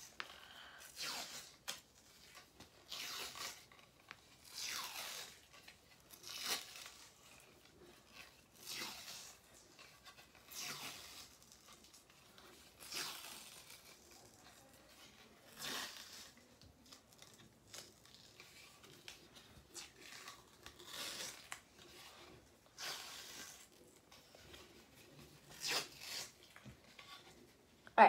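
Hockey tape being pulled off the roll and wrapped around a mini stick's blade: a faint ripping rasp about every two seconds, a dozen or so pulls in all.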